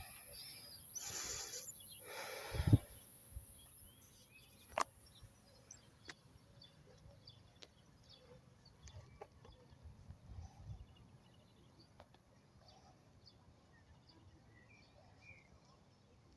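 Quiet outdoor ambience with two short rustling swishes and a sharp knock in the first three seconds, then scattered faint clicks and a few faint bird chirps.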